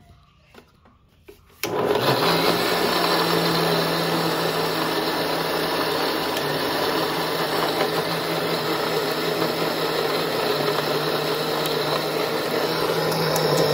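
Electric mixer grinder switched on about two seconds in, then running steadily as it blends coconut.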